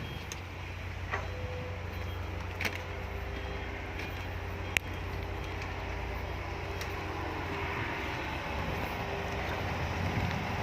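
Heavy diesel machinery engine running steadily with a low hum and a faint steady whine, broken by a few sharp clicks or knocks.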